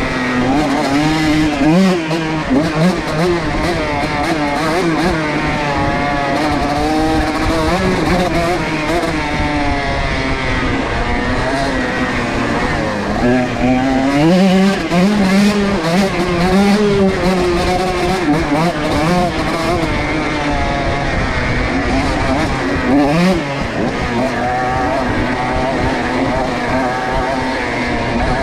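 125 cc two-stroke dirt bike engine revving hard and continuously, pitch rising and falling with each throttle blip and shift, with scattered knocks as the bike rides over the terrain.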